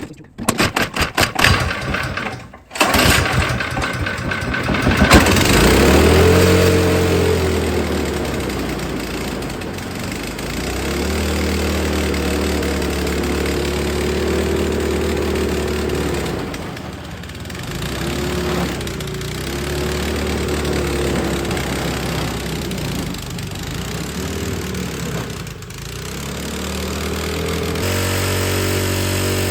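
Snowblower's small engine cranking in quick even strokes, then catching about three seconds in and running on. It has just had its clogged carburettor jet cleaned out after sitting with ethanol gas. Its speed rises and falls several times as it runs.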